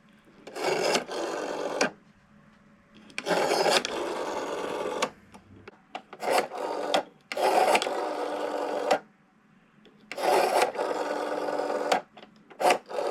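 Rotary telephone dial being wound round and whirring back with a rasping, clicking run, once per digit, about six digits dialed with short pauses between them.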